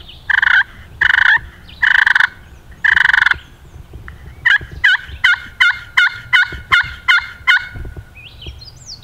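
A hunter's turkey call imitating a hen: four loud, drawn-out yelps, then a quick run of about nine short yelps at roughly three a second.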